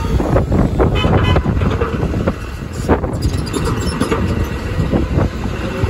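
Orion VII Next Gen diesel-electric hybrid city bus pulling past at close range, with a heavy low rumble, amid passing car traffic. Wind buffets the microphone.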